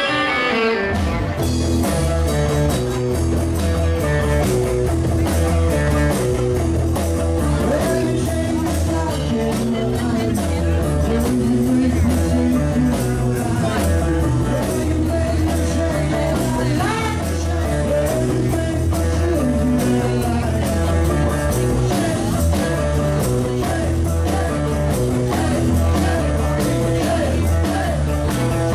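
A band playing music with a steady beat over a strong bass line.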